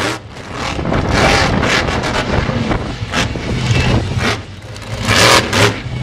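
Monster truck engine running hard, its noise surging and dropping several times, with the loudest surge a little past five seconds in.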